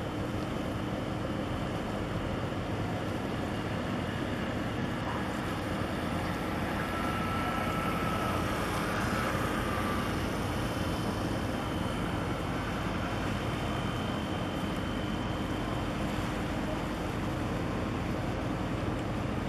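Large container ship passing close by on the water: a steady low rumble under wind noise, growing a little louder around the middle, with a faint high whine.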